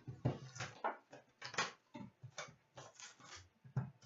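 Cardboard trading-card box and wrapped packs being handled and opened: an irregular string of crinkles, taps and clicks.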